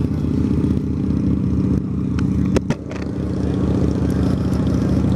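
Honda Shadow V-twin motorcycle engine running steadily at low speed, heard from the rider's seat, with a few sharp clicks about halfway through.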